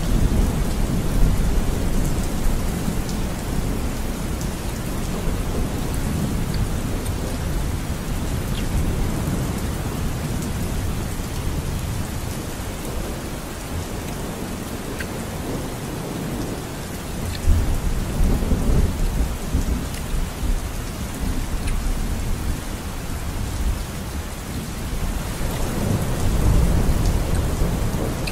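Steady rain with low rumbles of thunder that swell near the start, a little past halfway, and again near the end.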